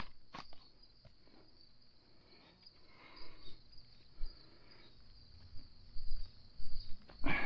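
Crickets chirring steadily in a high band, with soft rustling as corn husk and silk are pulled off an ear of corn by hand, and a loud crackling tear of husk near the end.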